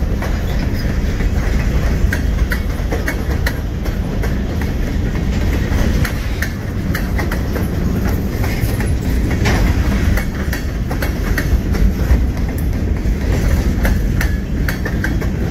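Union Pacific freight train's cars rolling past: a steady heavy rumble of steel wheels on rail, with irregular sharp clicks and clacks as the wheels cross rail joints.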